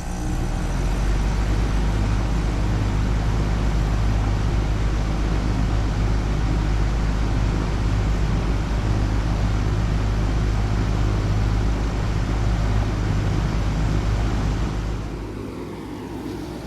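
2019 Bard wall-mount heat pump running in heat mode just after start-up: a steady low compressor hum under the rush of the outdoor fan. The sound eases off near the end.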